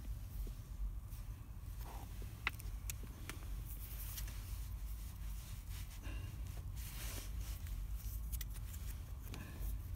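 Scattered small clicks and scrapes of a plastic card being worked in the keyway of a Master Lock puck padlock, over a low steady rumble.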